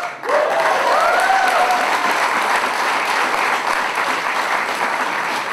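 Crowd applauding steadily, with a few cheering voices rising and falling over the clapping in the first couple of seconds.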